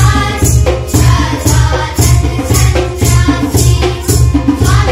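Children singing a song together in unison over a backing track, with a steady jingling percussion beat of about two strokes a second.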